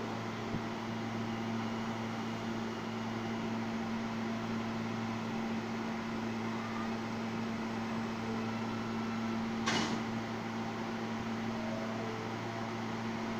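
Steady hum of a New York City subway train standing in the station with its doors open, its air conditioning and auxiliary equipment running. A single sharp clack sounds about ten seconds in.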